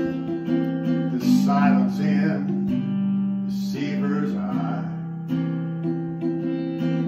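Instrumental passage: acoustic guitar strummed steadily while a harmonica plays long held notes over it, changing note every second or two.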